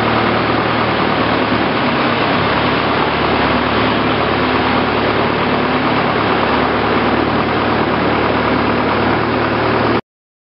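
Long-tail boat engine running steadily under way, heard from aboard the boat; it cuts off abruptly near the end.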